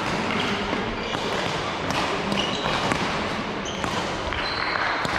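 Play in an indoor sports hall: a few sharp hits and short high shoe squeaks on the court floor over the hall's steady background noise.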